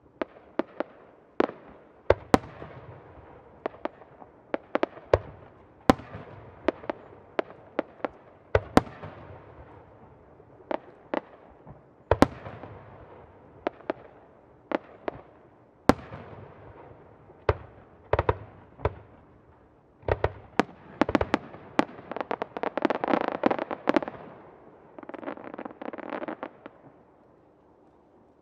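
Aerial firework shells bursting: a string of single sharp bangs, each followed by a rolling echo, then two dense runs of rapid popping, one about two-thirds of the way in and a shorter one just after, before it fades.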